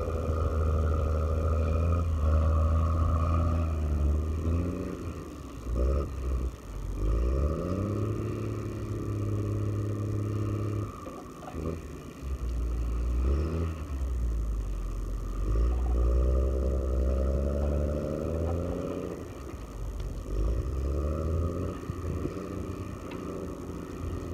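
A heavy machine's engine running and revving up and down, its pitch rising and falling every few seconds, with a steady higher whine underneath.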